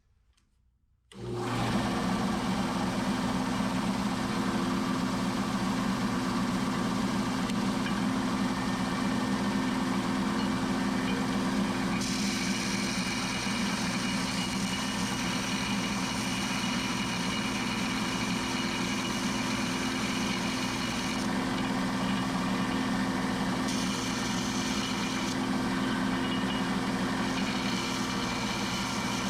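Engine-driven welding machine running at a steady speed, starting abruptly about a second in. A brighter hiss joins on top around twelve seconds in and thins out again after about twenty-one seconds.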